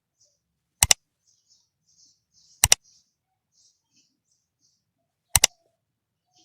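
Three sharp double clicks, each a pair of clicks in quick succession, about two and three seconds apart, with faint high rustling between them.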